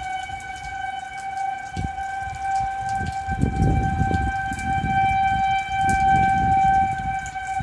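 Outdoor tornado warning siren sounding one steady tone, a sign that a tornado warning is in effect. Gusts of low rumbling noise build up about halfway through.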